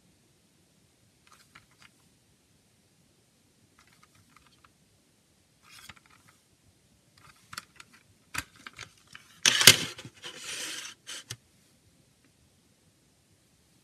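Plastic CD jewel case and its paper booklet being handled: faint clicks and rustles, then a run of plastic clicks and a loud clack of the case about nine and a half seconds in, followed by about a second of rustling.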